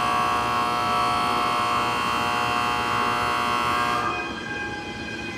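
Electric platform departure bell ringing steadily and buzzily, the signal that the train on that platform is about to leave; it cuts off suddenly about four seconds in.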